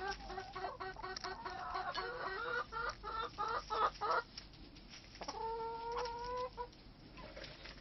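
Laying hens clucking in a quick run of short calls, about five a second, as they peck at toast held in a hand, then one long drawn-out call about five seconds in.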